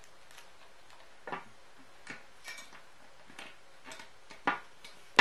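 ABS plastic locking collar clicking and knocking against a 1-inch metal dumbbell bar as it is fitted and clamped on, a string of light, irregular clicks with a couple of louder knocks near the end.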